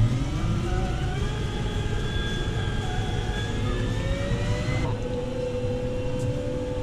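Diesel farm machinery of a maize silage harvest running under load: a deep engine rumble with a whine that rises in pitch for about five seconds, then changes abruptly to a steadier tone.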